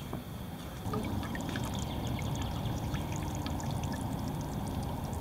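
Water pouring and trickling off a mesh crayfish trap full of crayfish, with many small scattered ticks; it gets louder about a second in.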